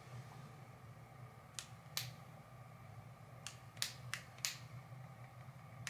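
YSL Radiant Touch (Touche Éclat) click-pen concealer being clicked about six times at an uneven pace, pushing the product up toward the brush of a new, unprimed pen. Faint, sharp plastic clicks.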